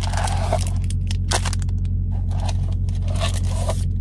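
Cardboard scraping and rustling as the lid of a Pokémon Elite Trainer Box is worked off by hand, in short scrapes near the start, once about a second in and again near the end, over a steady low hum.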